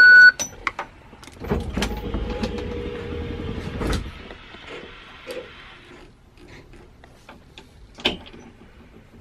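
A short electronic beep, then the school bus's powered entrance door running closed: a motor hums steadily for about two and a half seconds and ends with a knock as the door shuts.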